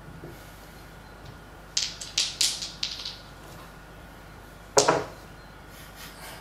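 Several gaming dice rattled together in a cupped hand, a quick run of clicks, then thrown down onto the table with one loud clatter about three-quarters of the way through.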